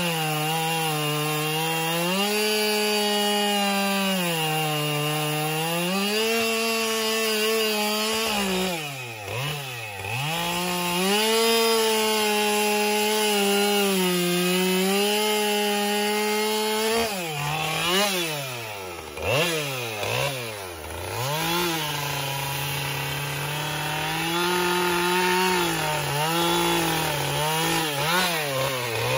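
Husqvarna two-stroke chainsaw running and cutting into wood, its engine held at high revs with small surges. It drops and rises sharply about nine seconds in, and again in several quick falls and climbs a few seconds past the middle.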